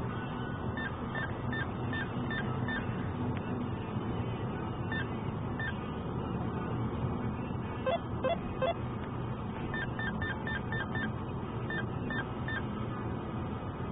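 Steady road and engine noise inside a moving car's cabin at highway speed, with runs of short, high electronic beeps at about two to three a second, and a few lower beeps about eight seconds in.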